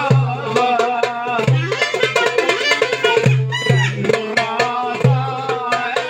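Live Turkish wedding music: a clarinet plays a wavering, heavily ornamented melody over a steady beat of hand-drum strokes and recurring low bass notes.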